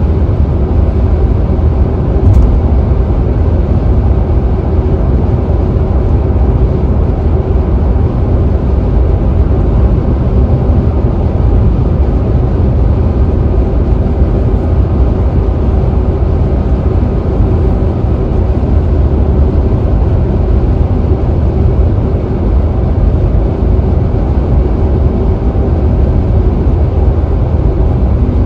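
Steady, deep rumble of a car cruising at freeway speed, mostly tyre and road noise, unbroken throughout.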